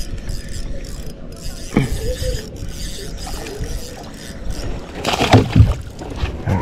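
Knocks and mechanical clicking of fishing gear being handled in a kayak, over a steady low rumble, with the loudest knocks about five seconds in.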